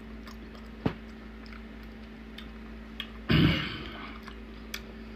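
A person chewing food close to the microphone, with small wet mouth clicks and a sharp click just under a second in. A louder mouth sound comes about three seconds in, over a steady low hum.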